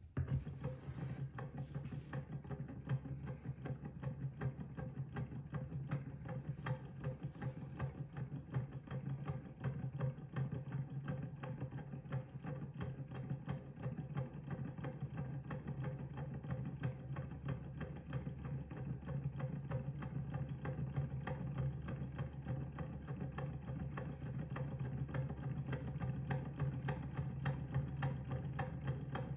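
Small kit-built hot-air Stirling engine running steadily at speed. Its piston, crank and flywheel make a fast, even mechanical clatter over a steady low hum.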